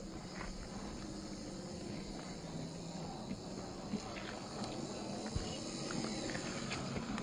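Electric drivetrains of 1/10-scale RC crawlers with 540-size motors running steadily with a low whine, with scattered clicks and crunches of the tyres climbing over loose rocks and gravel.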